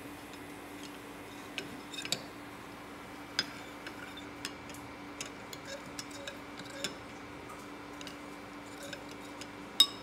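Stainless steel spoon clinking against a bowl while stirring semolina into milk: scattered, irregular light clinks, the loudest near the end, over a faint steady hum.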